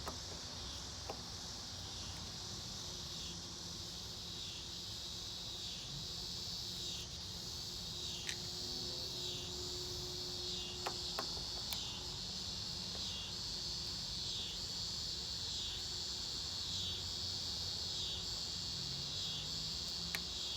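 Outdoor insect chorus: a steady high-pitched chirring that pulses about three times every two seconds, with a few faint scattered clicks.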